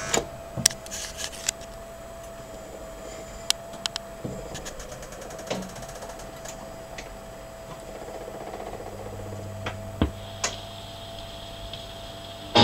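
Wurlitzer 1015 jukebox record changer at work: its motor hums steadily while the mechanism clicks and clunks as it picks a 78 rpm record from the stack and raises it on the turntable to the tone arm. A lower hum joins in for the last few seconds, just before the record plays.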